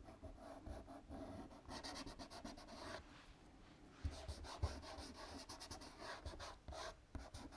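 Fingers and palm rubbing soft pastel into paper: faint, irregular scratchy rubbing strokes, with a few soft knocks of the hand against the board.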